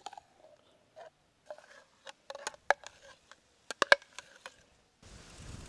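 A metal spoon scraping and tapping inside a clear blender jug, emptying thick homemade mayonnaise into a glass bowl: scattered clicks and knocks, bunched into two quick clusters partway through. Near the end a steady rushing noise takes over.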